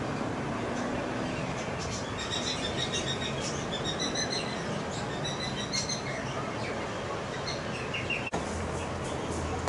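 Small birds chirping in short, quick repeated notes over a steady background hiss. The chirping is busiest from about two seconds in until about six seconds, with a few more near the end, just after a momentary dropout.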